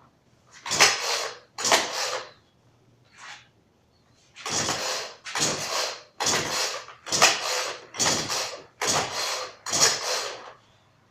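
Earthquake Viper 38cc two-stroke chainsaw being pull-started cold with the choke full out: about ten quick yanks of the recoil starter rope, each a short rasping zip as the engine is spun over, coming faster after the first few. The engine does not catch between pulls.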